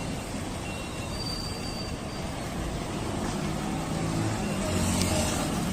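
Road traffic: engines of passing vehicles running with a steady rumble that swells in the second half, and a brief thin high-pitched tone about a second in.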